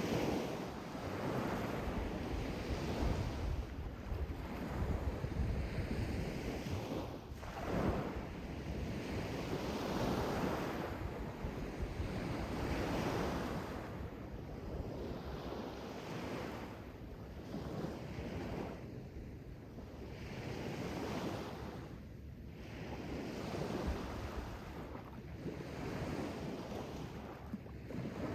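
Sea waves breaking and washing in: a rushing surge that swells and fades every few seconds.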